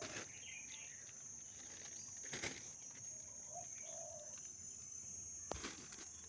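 Steady high-pitched insect drone, with a few faint clicks about two and a half seconds in and near the end.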